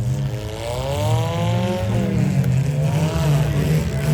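Six-cylinder demolition derby car engines running and revving over a steady low drone, one engine rising then falling in pitch over about two seconds, with another rev near the end.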